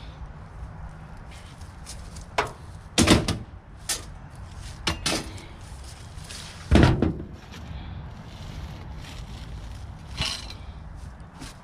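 Sheet-metal casing and parts of a closet air-conditioning unit being handled while it is taken apart: about six separate clanks and thuds, the heaviest about two thirds of the way through.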